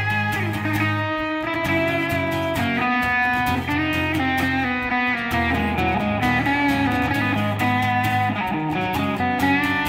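Live instrumental passage of electric guitar played over a strummed acoustic guitar, with sustained notes ringing out over steady low chords.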